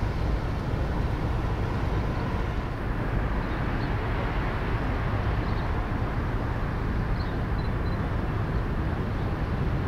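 Steady low rumble with a hiss above it, even in level throughout, with a few faint short high chirps around the middle.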